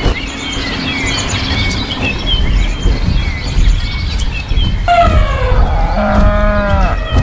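Cow mooing: one drawn-out call starting about five seconds in, sliding down in pitch. Birds chirp before it, over a low rumble.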